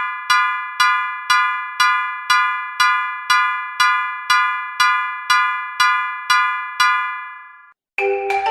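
Japanese railroad crossing alarm ringing its "kan-kan" bell, about two strikes a second, each strike ringing out and fading. It stops about seven and a half seconds in.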